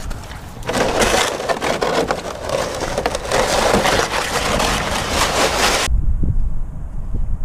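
Ice-fishing sled dragged across crusty snow on the ice: a loud, continuous crunching and scraping that stops abruptly near the end.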